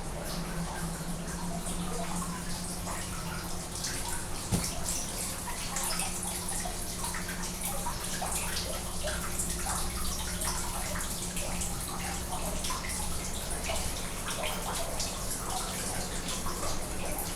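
Water running and splashing steadily, as from a tap or a spout pouring into a bath, over a steady low hum, with one sharp click about four and a half seconds in.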